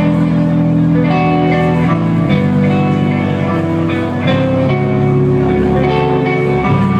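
Post-metal band playing live: electric guitars, bass and keyboard hold sustained chords that change every second or two, loud and steady.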